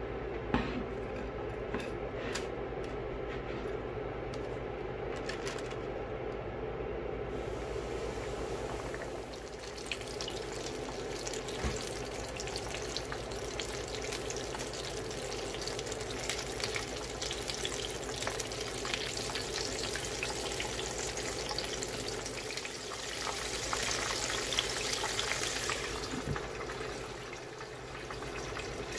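Chicken frying in hot oil: a steady sizzle that turns brighter and more crackly about eight seconds in.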